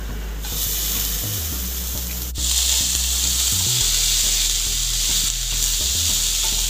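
Sprouted moth beans sizzling as they fry in hot oil and masala in a nonstick pan, stirred with a wooden spatula. The sizzle starts about half a second in and turns louder about two and a half seconds in.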